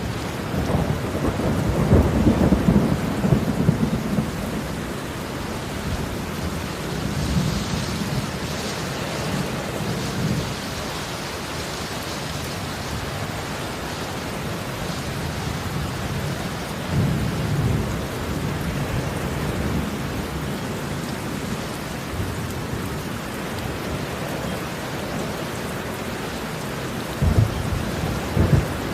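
Steady heavy rain with low rumbles of thunder rolling in and out, loudest about two seconds in, again around the middle, and as two sharper claps near the end.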